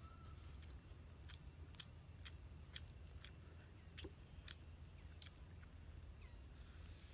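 Faint wet chewing and mouth clicks of someone eating chicken, a sharp click about twice a second over a quiet low hum.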